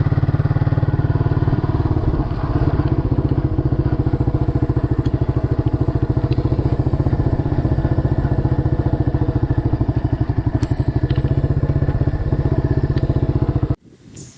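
Scrambler motorcycle engine running at a steady, even beat while riding a dirt road, easing slightly about two seconds in. It cuts off suddenly near the end, leaving a faint rustle.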